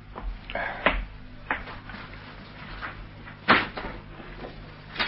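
Radio-drama sound effects of a few light knocks and clicks, like something being handled on a desk, with the loudest knock about three and a half seconds in. A low steady hum from the old recording runs underneath.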